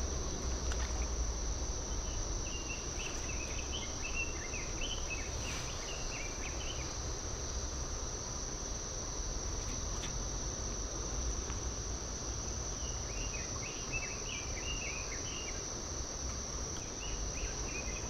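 Steady high-pitched shrilling of insects along the wooded lakeshore, over a low outdoor rumble. Two spells of short, quick chirps come in, a few seconds in and again past the middle.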